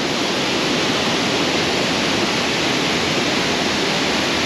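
Water pouring down a tiered stone waterfall into a pool: a steady, even rush of falling water.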